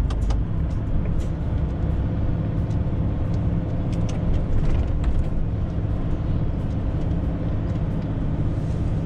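Cab-interior drone of a DAF XF 530's six-cylinder PACCAR MX-13 diesel running at high revs, held in seventh gear on a steep downhill for engine braking instead of the service brakes. Occasional faint clicks sound over the steady engine note.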